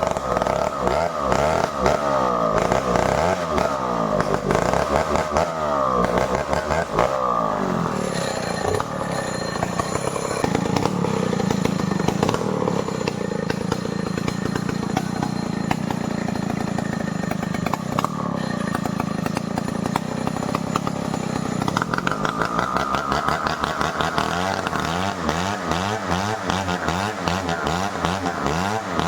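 Stihl 070 two-stroke chainsaw running while cutting merbau timber, its engine note rising and falling. The note sits lower from about ten seconds in, then climbs higher again from about twenty-two seconds.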